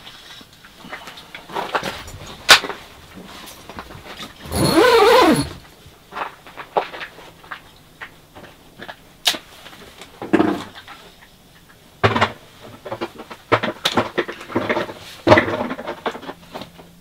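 Small clicks and rustles of fishing tackle being handled, a reel and lure worked in the hands. About five seconds in comes one loud, wavering, voice-like noise lasting about a second, and a shorter, fainter one follows near ten seconds.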